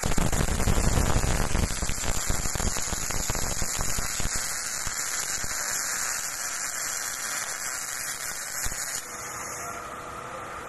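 Automatic arc welding torch crackling and buzzing steadily as it welds a steel radiator pipe joint, spitting spatter. It is loudest in the first couple of seconds and stops about nine seconds in as the arc goes out.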